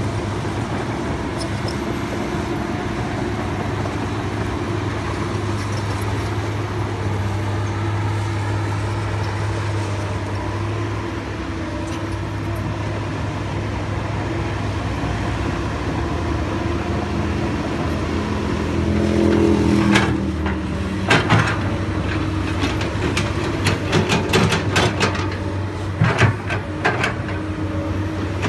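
Komatsu PC200 hydraulic excavator's diesel engine running steadily, swelling briefly about two-thirds in, followed by a run of sharp knocks and clanks.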